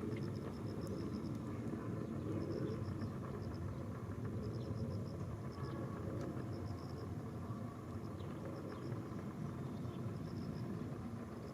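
Steady low outdoor rumble like distant road traffic, with an insect chirping in short high pulsed trills every second or two; no crossing bell is ringing.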